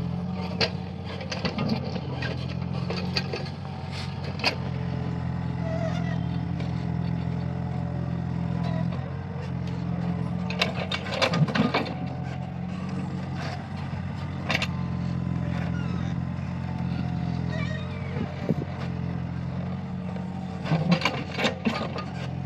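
Mini excavator's diesel engine running steadily while digging, with clusters of sharp clanks and knocks from the bucket and linkage in the first few seconds, around the middle and near the end.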